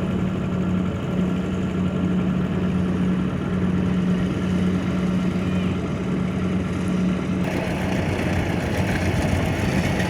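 Kubota DC-70 combine harvester's diesel engine running steadily with a low, even hum. About three-quarters of the way through, a rougher, hissier layer of machine noise joins it.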